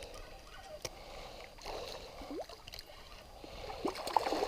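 Irregular splashing and gurgling of water as a small hooked pike is played and drawn in through a stream, getting busier and louder near the end.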